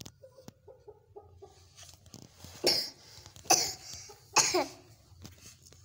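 Ayam Cemani chickens clucking softly, then three loud, harsh, cough-like bursts in quick succession, the last falling in pitch.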